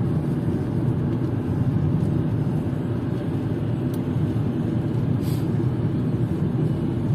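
Steady low road and engine rumble heard from inside the cabin of a moving car.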